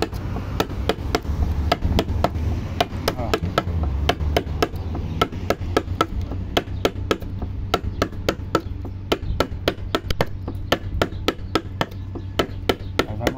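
Steady mallet blows driving a woodcarving gouge through the wood of a carved sign, sharp knocks about three a second as it cuts chips from the relief.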